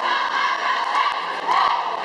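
Many voices shouting and cheering together in a large sports hall, with music underneath.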